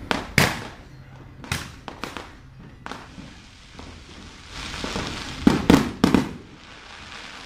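Fireworks exploding: a run of sharp bangs a second or so apart, then a spell of crackling with a cluster of three loud bangs, the loudest, about five and a half to six seconds in.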